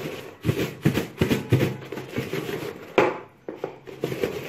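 Strawberries coated in sugar tumbling and knocking about inside a plastic storage box as it is shaken and tossed to mix them: a series of irregular soft thuds, the loudest about three seconds in.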